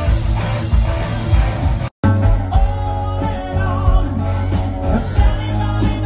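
Live rock band playing loudly through a PA: electric guitars, bass and drums. The sound cuts out for an instant about two seconds in, and then a singer is heard over the band.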